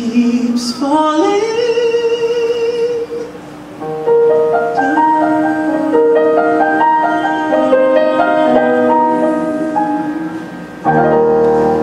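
A man singing a musical-theatre song with piano accompaniment: he slides up into a long held note about a second in. Slower sustained piano chords follow, with a fresh chord near the end.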